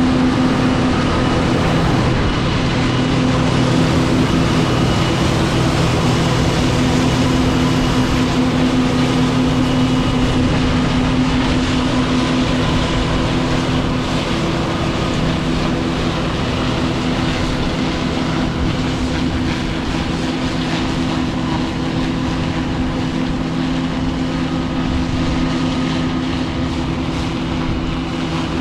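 John Deere 9570 STS combine running steadily, a constant machine drone holding several fixed tones over a wide rushing noise.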